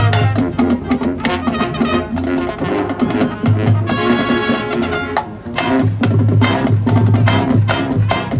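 School marching band playing its field show: brass over a drumline, with sharp accented hits and a held brass chord about four seconds in.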